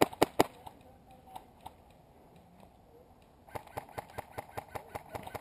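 Airsoft rifle fired close to the microphone in quick single shots, about five a second; the last three loud cracks fall in the first half second. After a lull, a faster run of fainter airsoft shots starts about three and a half seconds in.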